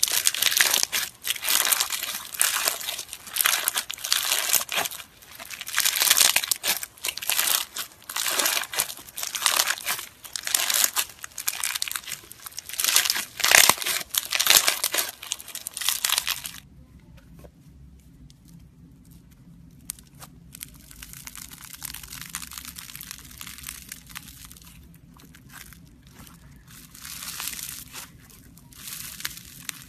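Crunchy bead-filled slime squeezed and pressed in the hand, its beads crackling loudly in surge after surge. About halfway through, this gives way to a quieter crackle from a blue fluffy slime being kneaded, over a low steady hum.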